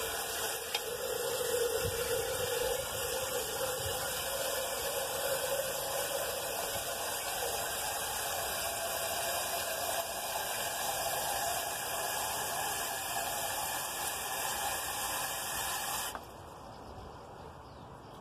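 Water from a hose spray nozzle pouring into a ceramic chicken waterer as it fills; the rushing water carries a hollow tone that rises slowly in pitch as the vessel fills. The flow cuts off suddenly about sixteen seconds in.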